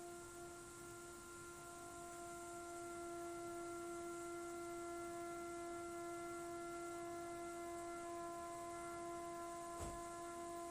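Defective gas boiler giving off a steady, faint tonal hum over a light hiss, with a single soft click near the end.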